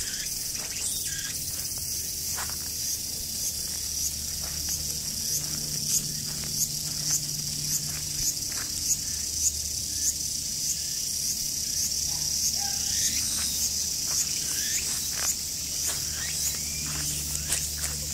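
A steady, high-pitched chorus of summer insects shrilling in the trees, with short rising calls repeating at a regular pace through the middle of the stretch. Light rustling steps in the grass come and go.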